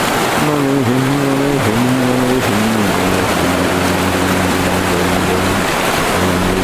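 Boat motor running, its pitch wavering up and down at first and then settling to a steady note about three seconds in, over the rush of river water past the hull.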